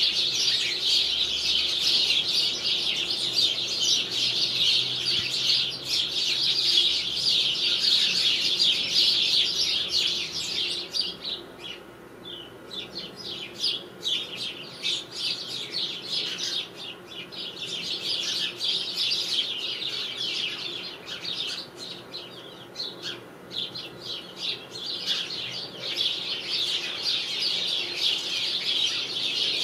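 A flock of sparrows chirping and chattering all at once, a dense continuous chorus of short high chirps. It thins out to scattered single chirps for a while in the middle, then builds back to the full chorus near the end.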